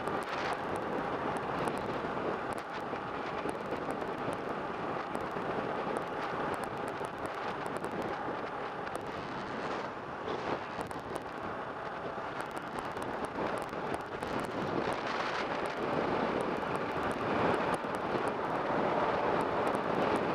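Wind rushing over the microphone while riding a 2015 Kawasaki Ninja 650, with the bike's parallel-twin engine running steadily underneath. It gets a little louder over the last few seconds.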